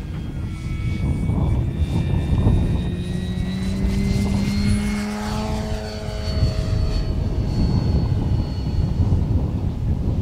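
Electric brushless motor of a scale RC Van's RV-4 model driving its large propeller at take-off power: a steady whine that climbs slowly in pitch as the model accelerates and lifts off, then drops in pitch about five seconds in as it climbs away.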